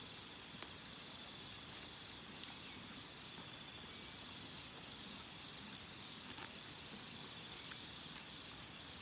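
A horse grazing close by, cropping wet grass: short, crisp tearing clicks, irregular and sometimes two or three close together. Under them runs a faint, steady, high-pitched hum.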